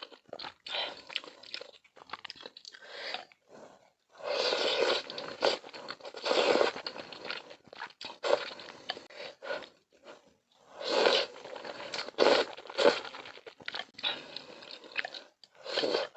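A person eating malatang close to the microphone: biting, crunching and chewing food, in irregular bursts with short pauses between mouthfuls.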